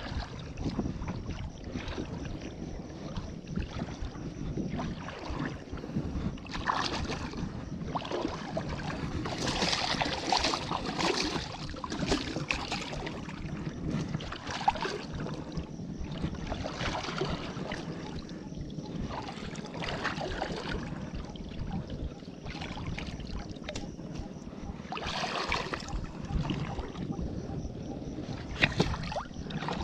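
Water sloshing and splashing in shallow flooded water, rising and falling in irregular swells, with no engine heard.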